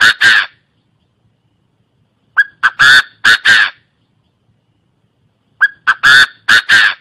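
Chinese francolin calling: a loud, harsh phrase of five notes, two short and three longer, repeated about every three seconds. The phrase is heard twice in full, after the tail of another at the very start.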